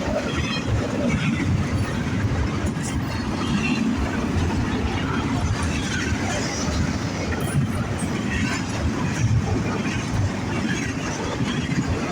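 Norfolk Southern train rolling past at speed, a steady rumble with the clatter of its cars and wheels on the rails.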